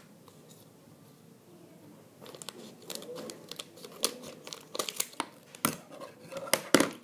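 The plastic packet of a Lego Minifigures blind bag crinkling as it is handled and cut open with scissors. It is quiet for about two seconds, then a run of sharp crinkles and snips follows, loudest near the end.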